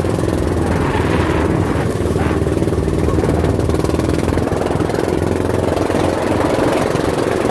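An engine running steadily at an even speed, close to the microphone.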